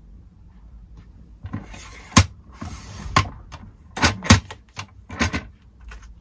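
Close-up handling noise: a string of sharp clicks and taps with papery or plastic rustling between them, starting about a second and a half in, the loudest click coming about two seconds in.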